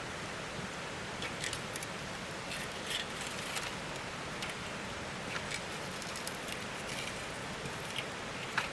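Steady rush of a mountain stream, with light clicks and taps scattered over it.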